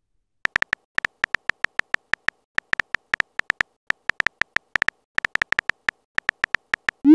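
Simulated phone-keyboard typing sound effect: a quick, uneven run of short, high, beep-like clicks, one for each letter as a text message is typed. A short rising blip comes right at the end.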